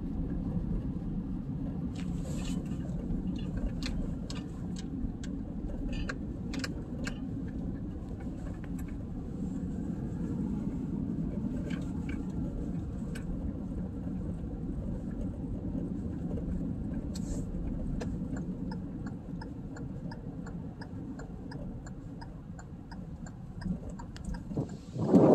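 Car cabin noise while driving on a paved road: a steady low rumble of tyres and engine, with scattered clicks and knocks. Near the end comes a run of light, evenly spaced ticks.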